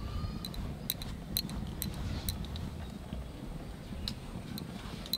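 Light, sharp taps, about two a second with a pause in the middle, as the end of a stalk is dabbed onto ghee-coated paratha dough lying on a marble slab.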